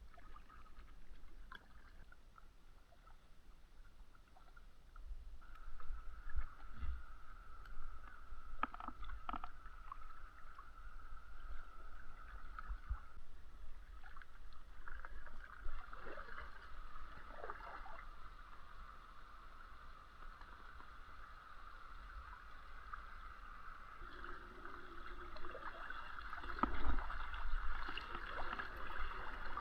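A kayak being paddled, with water splashing and trickling around the paddle and hull.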